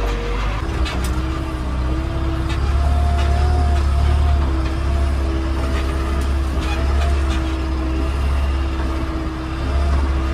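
Heavy diesel engines running, with a deep rumble and a steady whine that wavers slightly in pitch.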